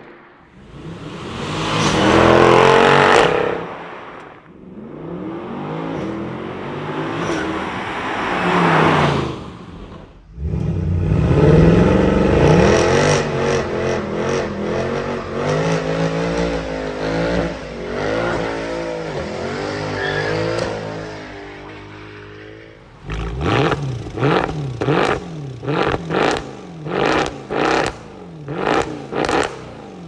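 Mercedes-Benz W204 C63 AMG M156 V8s on the stock exhaust, in several clips. First a car goes past twice, swelling up and fading. Then an engine revs hard for about twelve seconds, its pitch rising and falling. Near the end come quick sharp throttle blips, about one a second.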